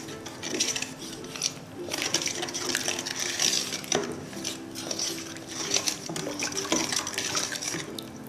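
Wooden spoon stirring a dark soy-based marinade in a stainless steel bowl, with repeated light knocks and scrapes of the spoon against the metal and wet stirring of the thick sauce.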